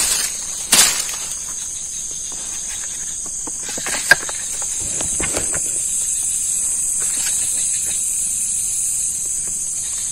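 Night insects calling in a steady, high-pitched, even drone, with a few sharp clicks. The loudest click comes about four seconds in.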